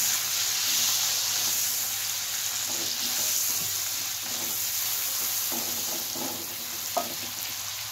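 Sliced shallots and garlic sizzling steadily in hot oil in a metal wok, sautéed until fragrant while a spatula stirs them; a short tap about seven seconds in.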